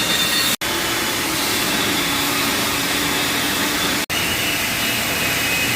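Steady rushing, blowing noise of running blacksmith-shop equipment, broken by two split-second dropouts.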